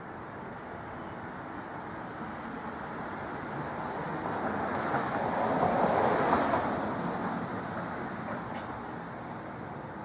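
A vehicle passing: a steady rushing noise that swells gradually, peaks about six seconds in, then fades.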